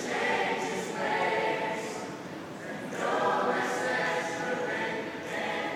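A mixed choir singing a cappella in a metro station's hard-walled escalator hall.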